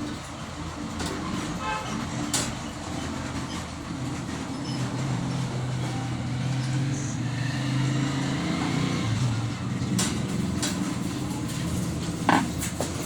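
A motor vehicle engine running, swelling through the middle, with a few sharp clicks and knocks.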